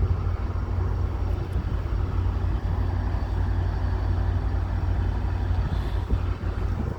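Metra EMD F59PH diesel locomotive running steadily while standing, a loud, even low rumble with no change in pitch.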